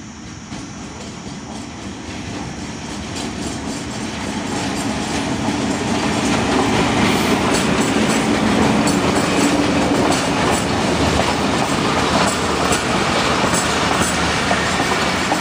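Pakistan Railways diesel-hauled passenger train approaching and passing close by. The locomotive's engine hum grows louder over the first several seconds, then the coaches roll past with a steady rumble and the clickety-clack of wheels over rail joints.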